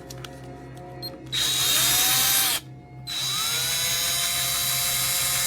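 DEKOPRO 12V cordless drill's motor running twice: first a short burst of just over a second that spins up and winds down, then, after a brief pause, a longer run that spins up with a rising whine and holds a steady pitch.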